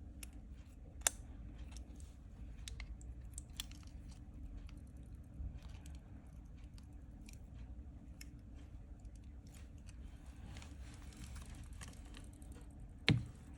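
Small repair tools clicking and tapping against the iPhone's parts and screws: scattered light clicks, a sharper click about a second in and a louder knock near the end, over a steady low hum.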